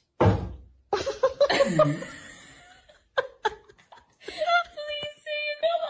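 A bump just after the start, then a person's voice exclaiming and laughing, with short repeated laughs near the end.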